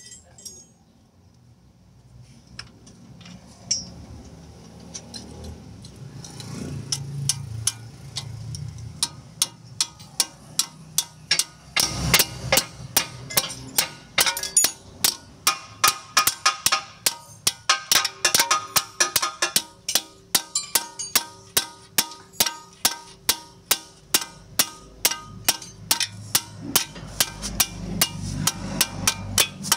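Background music with a steady percussive beat that builds up over the first dozen seconds, then hits hard and keeps a quick, even pulse.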